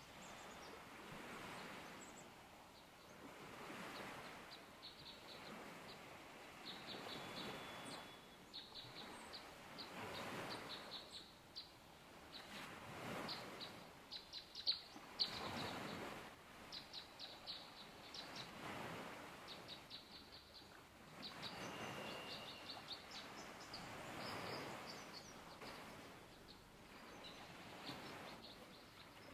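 A small songbird calling in rapid trills of quick high repeated notes, many short series one after another, over a faint rushing background that swells and fades every few seconds.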